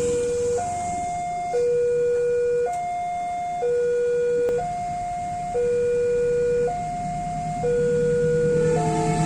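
Railway level-crossing warning alarm sounding a two-tone signal, a low note and a higher note taking turns about once a second, warning that a train is coming. Near the end further tones join in and a low rumble begins to rise.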